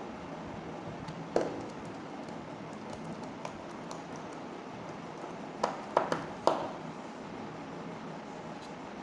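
Small sharp clicks and taps from a screwdriver and hands on a Xiaomi Redmi 5's plastic frame as its screws are tightened: one about a second and a half in, then a quick run of four around six seconds in. Under them is a steady background hiss.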